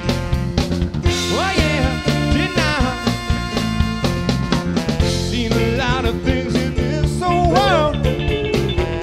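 Soul band playing an upbeat cover with a steady beat and bass, and a wavering lead melody line over it, with a saxophone among the instruments.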